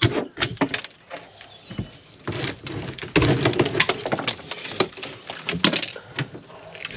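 Old painted wooden roof panel of a boat's wheelhouse being wrenched off by hand, with a run of sharp cracks, knocks and splintering as it breaks away from its few fixings.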